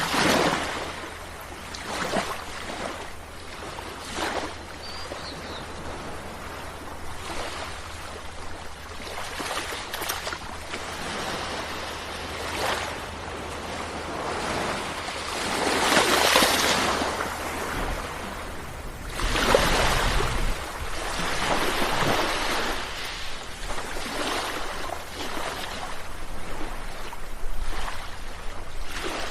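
Sea waves breaking and washing in, in repeated surges; the loudest wave breaks about sixteen seconds in, with another close after it about twenty seconds in.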